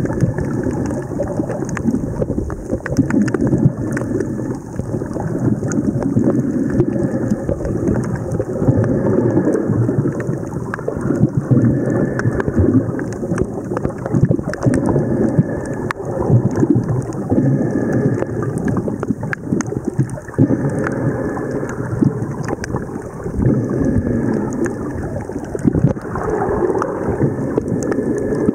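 Steady muffled rumbling and sloshing of water against a camera's waterproof housing during a snorkel, with many small crackles.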